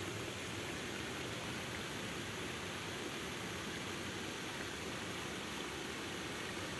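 Steady rushing of water spilling over a small stepped cascade in a stream.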